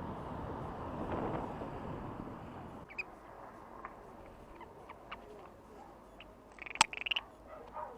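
Wind noise rushing on a small action camera's built-in microphone, dropping away suddenly about three seconds in. Then quieter outdoor ambience with scattered small clicks and a short high chirp with a sharp click near the end.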